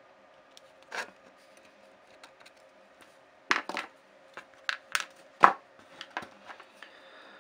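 Irregular sharp clicks and taps of small hand tools and objects being handled and set down on a workbench during a flux-and-solder repair, the loudest a little past halfway, over a faint steady hum.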